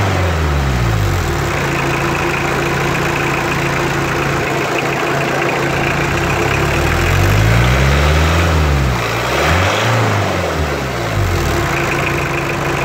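Toyota 2C four-cylinder diesel engine running while its injection pump timing is being adjusted. Revs drop back to a steady idle in the first second or so, then rise and fall twice a little past the middle before settling at idle again.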